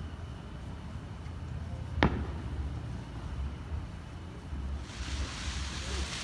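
Fireworks: a single sharp bang about two seconds in, then a hiss of sparks that starts near the end.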